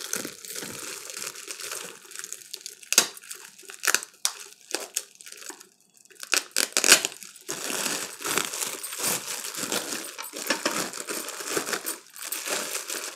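Clear plastic packaging bag crinkling and rustling as a white plastic cake-decorating turntable is pulled out of it: scattered sharp crackles at first, then dense continuous crinkling from about halfway through.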